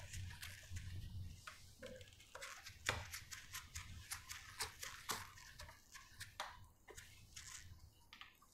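Board eraser wiping a whiteboard clean in many short, quick strokes, faint and irregular, dying away near the end.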